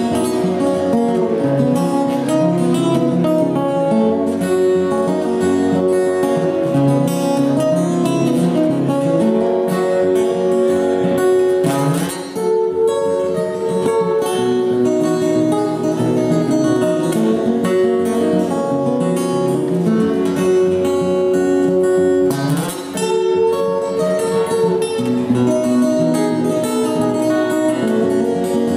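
Three acoustic guitars playing an instrumental together, with brief drops in the playing about twelve and twenty-three seconds in.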